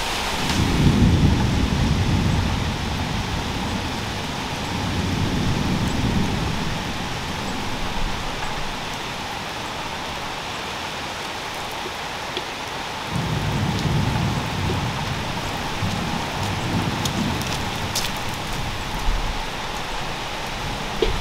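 Steady rain falling, with three long rolls of low thunder rumbling through it: at the start, around a quarter of the way in, and again past the middle.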